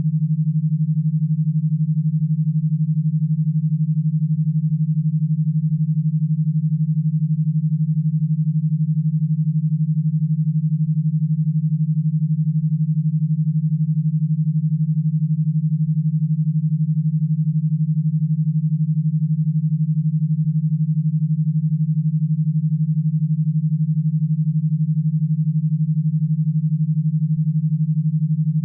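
E-stim audio signal: one steady, loud, low synthesized tone near 150 Hz, pulsed rapidly at an even rate, a 12 Hz pulse pattern made to drive an electrostimulation box.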